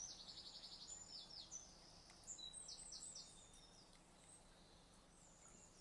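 Faint songbird singing: quick runs of high, rapidly repeated chirps in the first half, thinning out to a few scattered notes later.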